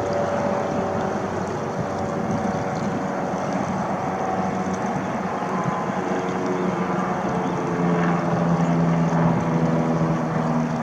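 A motor's steady drone, pitched lines that slowly shift in pitch and grow louder about eight seconds in.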